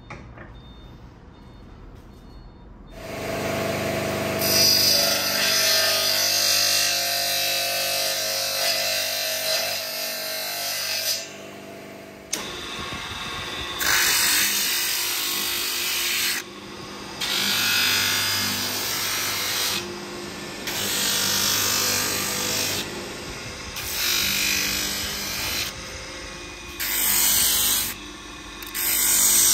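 Electric disc sander grinding a wooden knife handle, a loud rasping hiss over the motor's hum. From about halfway, it comes in repeated passes of one to three seconds as the wood is pressed to the disc and lifted off. The first three seconds are quiet.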